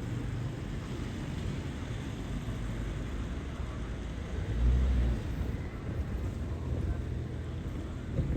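Low, steady vehicle rumble, with a louder low bump about halfway through.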